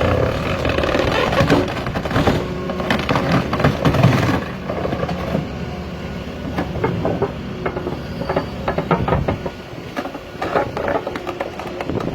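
Root-removal cutting machine at work: its engine runs under load, with many irregular cracks and knocks as it tears through roots.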